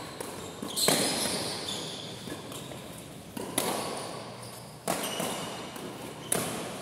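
Badminton rackets striking a shuttlecock during a doubles rally: a series of sharp cracks, about four strong hits a second or so apart, each ringing on in the hall.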